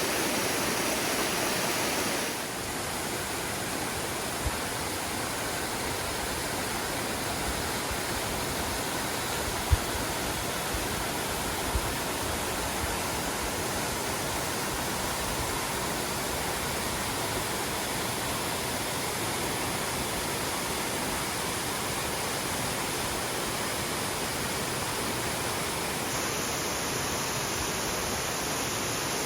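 Waterfall pouring: a steady, even rush of falling water that drops slightly in level about two seconds in, with a few faint knocks.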